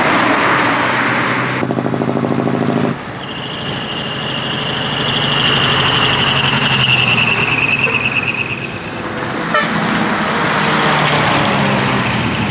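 Decorated heavy trucks pulling out one after another, their diesel engines running and revving, with a throbbing engine note early on. From about three seconds in, a high thin steady tone that falls slightly in pitch sounds for about six seconds over the engines.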